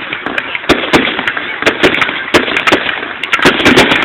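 Fireworks finale: a rapid barrage of shell bursts, about three sharp bangs a second, over continuous crackling.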